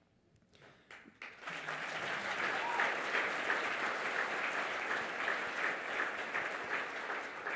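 Audience applauding: a few scattered claps, then the clapping swells to a full, steady round about a second in and eases off near the end.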